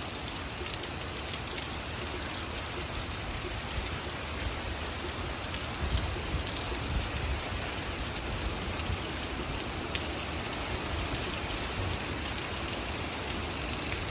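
Heavy hurricane rain pouring down steadily during a squall.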